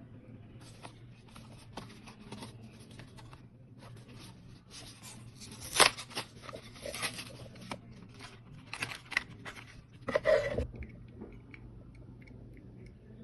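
Packaging of a die-cast toy car being torn and handled open: dense rustling and crackling with sharp snaps, the loudest near the middle and a last loud burst about three seconds before the end.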